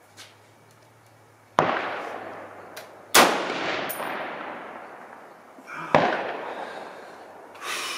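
Three rifle shots, the first about a second and a half in, the next a second and a half later and the last near the six-second mark, each followed by a long echo dying away.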